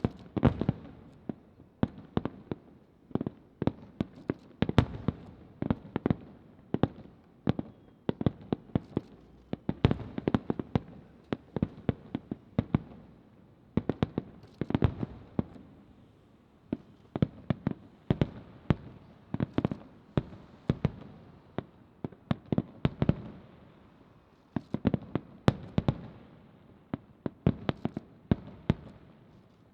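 Aerial fireworks shells bursting in a dense, irregular string of sharp booms, each with a short echoing tail, heard at a distance.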